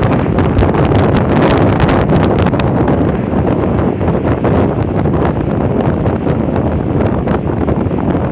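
Wind buffeting the microphone at a moving vehicle's open side window, over the vehicle's engine and road noise, with scattered clicks in the first few seconds.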